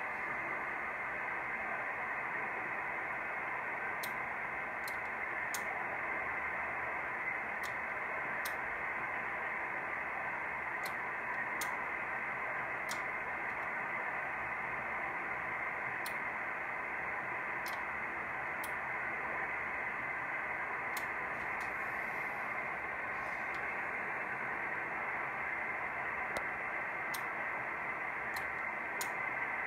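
Yaesu FT-847 transceiver's receiver hiss from its speaker in upper-sideband mode on 432 MHz, steady and cut off above the treble by the sideband filter. The EME antenna array is aimed at the sun, so the hiss is solar noise lifting the receiver's noise floor. Faint, irregular ticks sound now and then.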